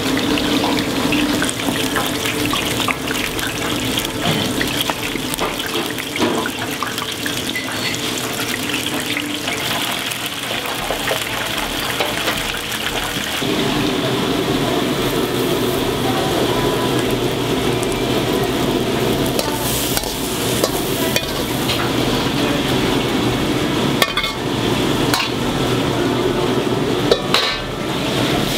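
Rice-flour-dusted oysters deep-frying in hot oil: a steady sizzling, bubbling hiss, with a couple of sharp clicks near the end.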